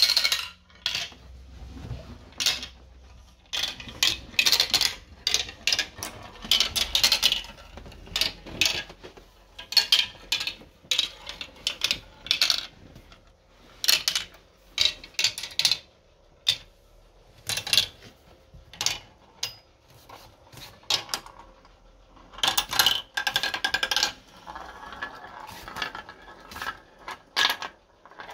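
Glass marbles running down a plastic marble run, with irregular sharp clicks and clattering rattles as they drop and knock through the track pieces. A stretch of steadier rolling comes near the end.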